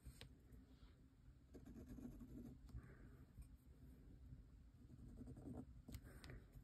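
Very faint scratching of a brass dip nib drawing strokes across notebook paper, with a few light clicks near the start and again near the end.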